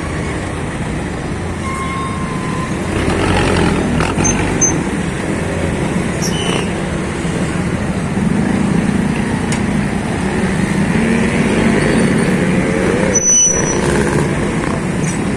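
Steady street traffic noise from vehicle engines running and passing, with people's voices mixed in.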